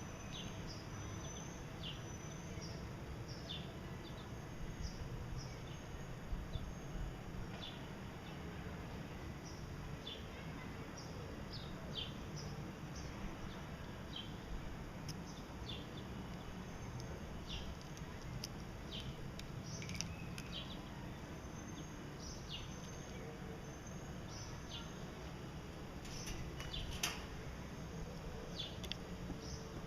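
Gouldian finches giving short, scattered chirps, more often in the second half, over a low steady hum.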